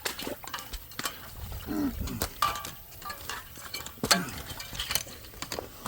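Footsteps scrambling up a rocky, debris-strewn creek bank: a string of scattered clicks, knocks and scuffs, with two brief grunts of effort about two and four seconds in.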